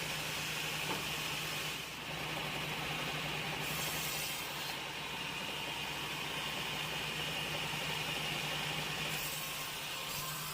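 Sawmill machinery running steadily, a constant motor hum with hiss over it.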